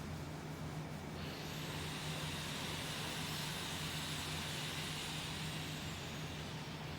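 Leonardo AW189 twin-turbine helicopter running: a steady low drone, joined about a second in by a loud hiss that holds for about six seconds and then cuts off.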